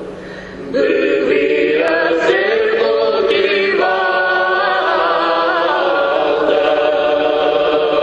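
Background music of group singing, with voices holding long notes that slide slowly in pitch. It comes in after a brief lull less than a second in.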